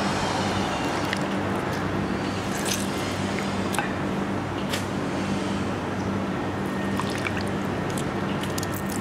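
Lime halves squeezed by hand into a clay mortar, the juice squishing and dripping, with a few light clicks of a metal spoon against the mortar. A steady low hum runs underneath.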